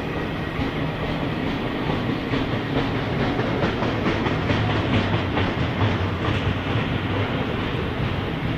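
Freight train of loaded container wagons rolling past, a steady rumble of steel wheels on rail with a rapid clicking of wheels over rail joints, thickest through the middle.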